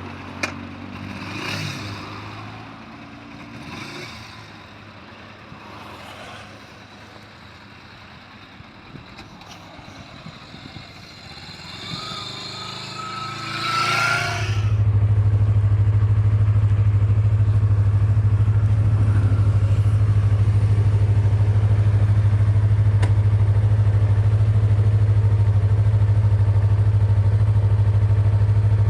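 Scattered clicks and handling noise, then about halfway through a motorcycle engine is cranked and starts. It then idles at a steady low hum.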